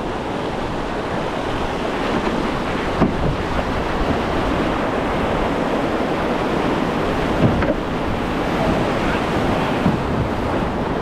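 Whitewater of a river rapid rushing steadily, with waves and haystacks in the current.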